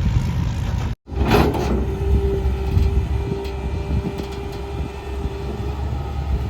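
Heavy vehicle engine, such as a tractor's or backhoe's, running with a steady low rumble, broken by a brief dead-silent gap about a second in where the footage is cut.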